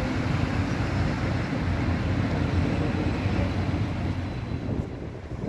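A city tram passing close by: a steady rolling rumble on the rails amid road traffic, which fades near the end.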